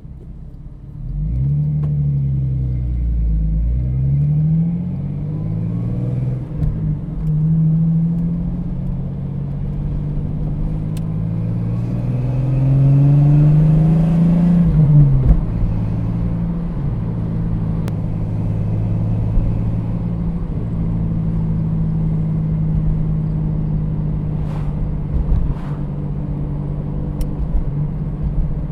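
1989 Jeep Cherokee XJ's 4.0L inline-six running through a Flowmaster 40 Series Delta Flow muffler while driving. The exhaust note rises and drops several times during the first half and then holds a steady drone.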